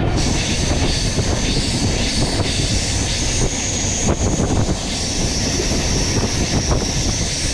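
Express train coach running on the rails at speed, a loud rushing roar of wheels and track with a high, slightly wavering wheel squeal over it that sets in abruptly.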